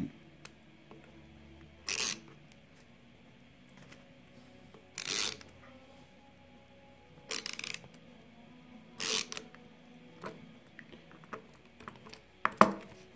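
Manual ratcheting screwdriver turning a grip stud into a fat-bike tire's soft rubber tread lug: five short bursts of rapid ratchet clicking a couple of seconds apart, the last the sharpest and loudest.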